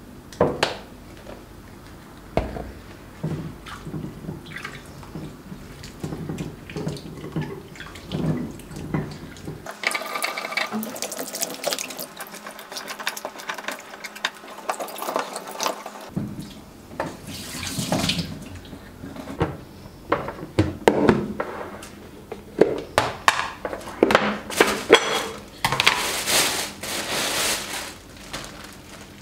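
Kitchen tap running into a sink for several seconds, among scattered clicks and knocks of things being handled at the counter.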